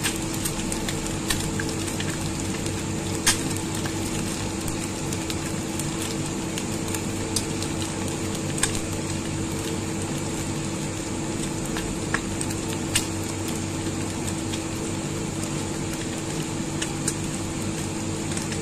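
Eggs frying in hot oil in a nonstick pan: a steady sizzle with scattered sharp pops of spattering oil, the loudest about three seconds in.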